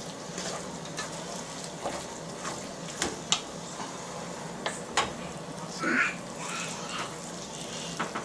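A spoon stirring chili of ground meat and tomato sauce in a pot, scraping and knocking against the pot's side in several sharp clicks, over a steady sizzle of the chili cooking.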